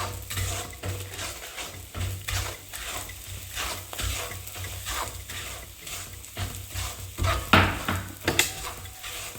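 A spatula stirring and scraping roasted wheat flour and ground edible gum (gond) in hot ghee in a pan, with a soft sizzle; short scraping strokes come steadily, about two a second, and two strokes near the end are louder.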